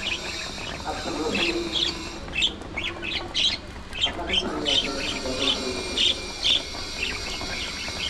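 A flock of budgerigars chirping and chattering, many short high chirps coming in quick bunches throughout.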